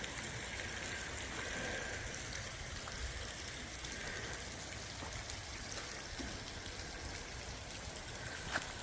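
River water flowing: a steady, even rush of moving water, with a faint tick near the end.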